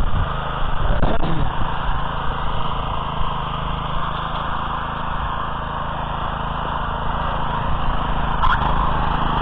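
Small petrol engine of a walk-behind motor cultivator running steadily under load as its tines till the soil. A brief sharp knock near the end.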